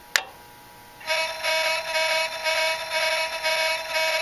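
A single click, then from about a second in the inducer relay on a furnace control board buzzing with a pulsing electrical tone, about two to three pulses a second: the sign of a bad control board.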